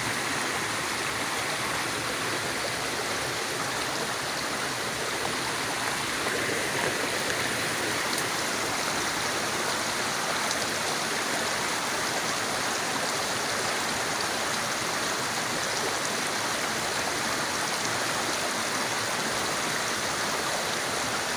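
Shallow, clear stream running steadily over stones and gravel, a continuous rushing ripple of water.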